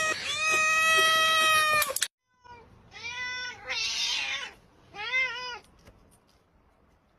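A cat's long, loud, drawn-out meow, held at a steady pitch, breaks off about two seconds in. It is followed by two short wavering calls with a brief hiss between them.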